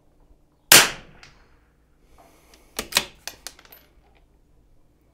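A single .22 LR rimfire rifle shot about a second in, sharp and loud with a short ringing tail. About two seconds later comes a quick run of four or five sharp metallic clicks, typical of a bolt-action rifle's bolt being worked to eject and chamber the next round.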